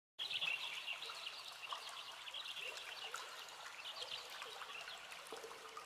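Outdoor ambience: many short, high bird chirps over a steady hiss. It starts abruptly just after the opening silence.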